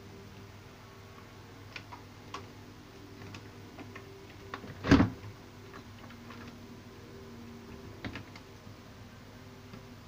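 Scattered small clicks and rattles of hands handling wires and plastic connectors on a CRT TV's chassis board, with one much louder clack about five seconds in. A steady low hum runs underneath.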